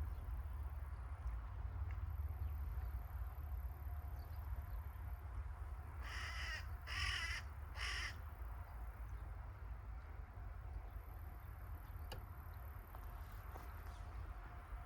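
A crow cawing three times about a second apart, some six seconds in, over a steady low rumble.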